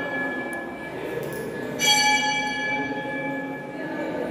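A temple bell rung at a steady pace, about every three and a half seconds: the ringing of the last strike is fading at the start, and a fresh strike comes about two seconds in and rings on. A low murmur of background noise runs underneath.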